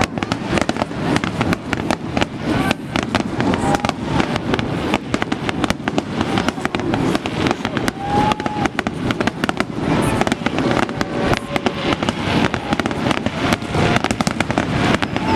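Fireworks display: a rapid, continuous run of bangs and crackles from bursting shells, with crowd voices beneath.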